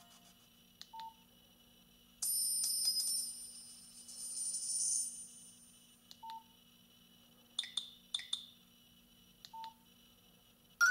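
Nokia 7230 mobile phone between ringtones: short single key beeps and button clicks as its menu is worked. A couple of hissy, high-pitched electronic sounds, about a second each, come in the first half.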